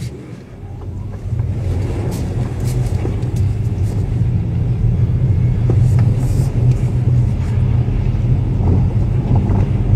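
Tesla Model S on the move: a steady low road rumble that builds over the first second or so, with faint scattered knocks. The knocks are the clatter of the front air-suspension struts, still there despite a plate fitted under the strut mounts.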